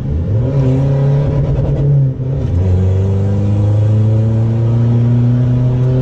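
Common-rail diesel pickup engine, heard from inside the cab, pulling under full throttle on a test drive of its remapped add-on tuning box. The engine note climbs, dips with an upshift about two seconds in, then climbs slowly again in the next gear.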